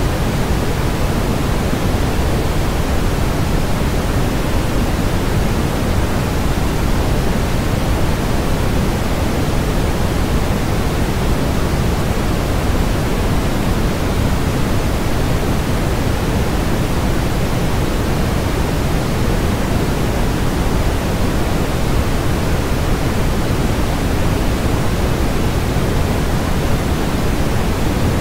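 Brown noise: steady synthetic random noise, strongest in the deep bass and fading toward the treble, with no tones and no change throughout.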